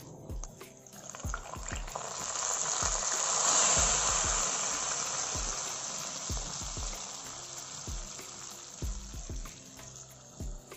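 Hot-oil tempering of mustard seeds, coriander seeds, onions, dried red chillies and curry leaves poured into a pot of hot tamarind rasam, sizzling loudly. The hiss swells about two seconds in and then slowly dies away, with a few dull knocks from the pan and pot being handled.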